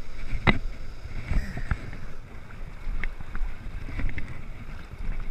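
A few sharp knocks and clicks over a low, steady rumble of wind on the microphone.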